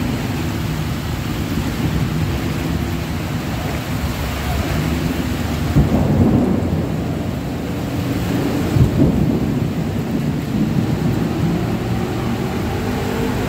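Heavy rain pouring steadily on a flooded road, with a deep rumble underneath that swells briefly about six and nine seconds in.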